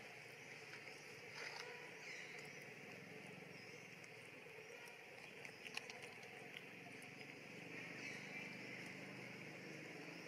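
Quiet outdoor ambience: a faint steady insect drone, with a few soft clicks about five to six seconds in.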